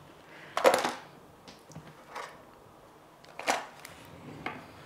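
Household items being handled and put away: a sharp clatter about half a second in, a second knock about three and a half seconds in, and a few lighter taps between.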